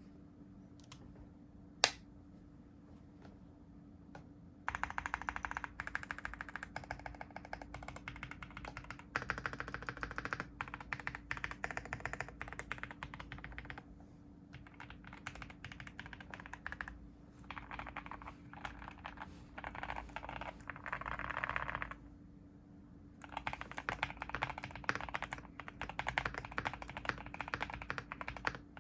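Typing on a custom mechanical keyboard: Mod 007V2 case, polycarbonate plate, lubed Boba LT linear switches, full foam, and a deep, poppy spacebar. A single sharp click comes about two seconds in. Steady fast typing starts about five seconds in, with short pauses near the middle and again about three-quarters of the way through.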